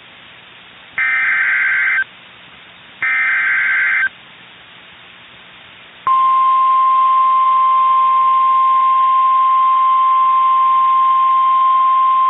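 Emergency Alert System signal for a severe thunderstorm warning. Two buzzy one-second bursts of digital header data sound about two seconds apart. About six seconds in, a loud, steady one-pitch warning alarm tone comes in suddenly and holds, like the NOAA Weather Radio attention tone.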